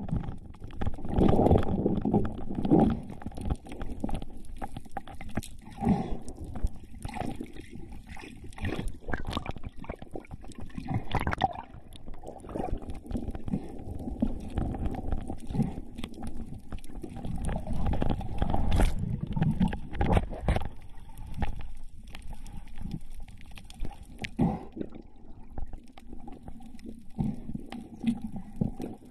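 Underwater sound heard through a camera housing: muffled rushing and gurgling of water, with scattered clicks and knocks.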